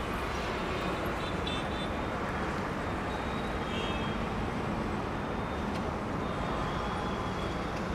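Steady, even hum of distant road traffic rising from a busy highway far below, with a few faint short high beeps.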